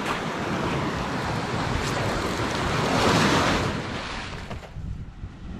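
Sea waves breaking and washing over shoreline rocks, with wind buffeting the microphone. The surf swells about three seconds in, then drops lower near the end.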